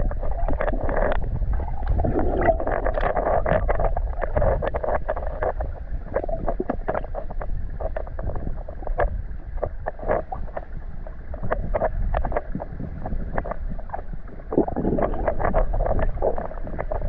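River current heard through an underwater camera housing: a muffled, rumbling rush of water with many small sharp clicks and ticks.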